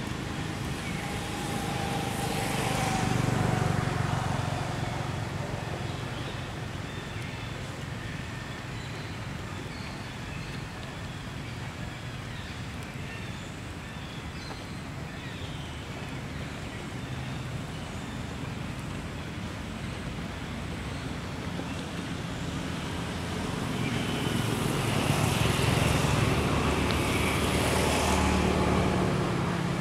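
Road traffic: a vehicle passes twice, swelling and fading about three seconds in and again near the end, over a steady outdoor rumble.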